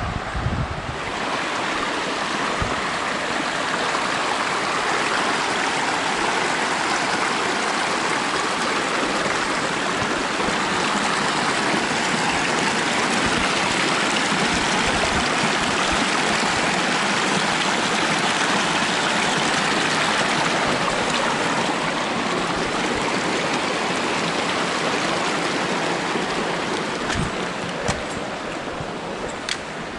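Rushing water of a mountain creek, a steady hiss that grows louder over the first few seconds and fades gradually toward the end as the creek is passed.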